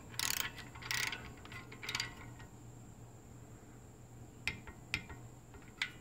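A ratcheting torque wrench tightening a small engine's cylinder head bolt to its first-stage 82 inch-pounds: three short ratchet strokes in the first two seconds, then three sharp clicks near the end.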